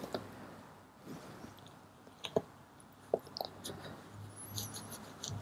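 Quiet handling noises: a small steel part rubbed in a cloth rag by nitrile-gloved hands, with a few light clicks and taps scattered through.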